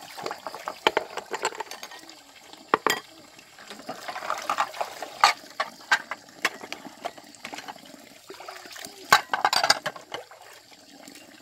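Water splashing and pouring, with many sharp clicks and knocks scattered throughout and two louder splashy stretches, one about halfway and one near the end.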